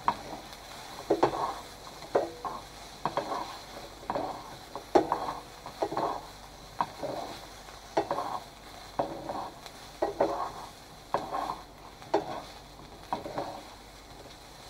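Vegetables and Quorn pieces frying with a little oil in a JML Copper Stone frying pan, stirred and turned with tongs: a low sizzle with a short scrape or click of the tongs against the pan about once a second.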